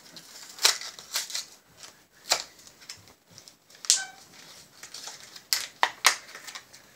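Hands handling and opening a small plastic toy package: irregular crinkles and clicks, with about half a dozen sharper snaps scattered through.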